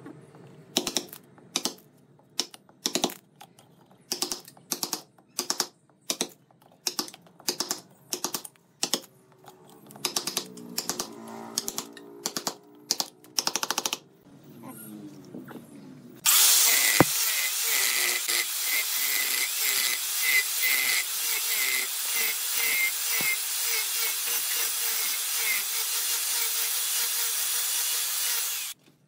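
Sharp wooden knocks, about one or two a second, as a wooden-handled tool knocks a wooden plug out of the mouth of a turned vase. About halfway through, an electric angle grinder starts and runs steadily, grinding the wooden base of the vase, then cuts off suddenly near the end.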